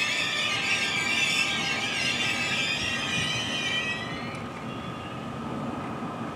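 NJ Transit ALP-46A electric locomotive pushing its train away along the track, with the wheels running on the rails and a few steady whining tones. The noise fades and thins about four seconds in as the train recedes.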